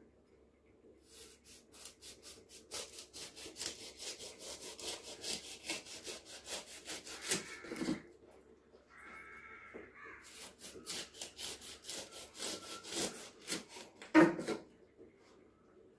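Kitchen knife sawing down through a pineapple's tough, spiky rind in quick, repeated strokes of about four a second. There is a pause about halfway through, and a single sharp knock just after the second run of strokes.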